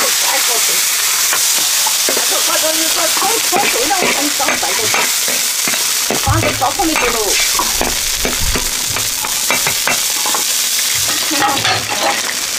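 Wild mushrooms and cured pork sizzling in a large iron wok while a metal ladle stirs them, scraping against the wok in many short strokes.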